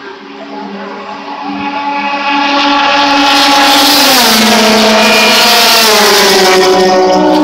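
Race car engine approaching and growing louder, then passing close by about four seconds in with a sharp drop in pitch. The engine note stays loud afterwards and its pitch falls twice more.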